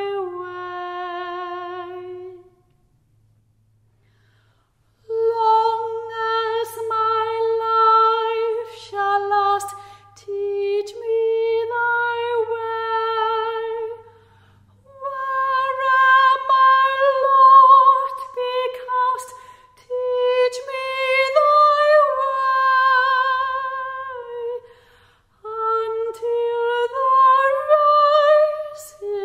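A solo woman's trained classical voice singing a hymn unaccompanied, long held notes with a wide vibrato. There is a pause of a couple of seconds near the start before the next verse begins.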